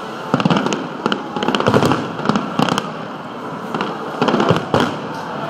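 Fireworks shells bursting overhead: sharp bangs and crackles in quick clusters, about a second in and again near the end.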